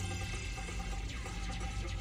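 Background music with steady held tones.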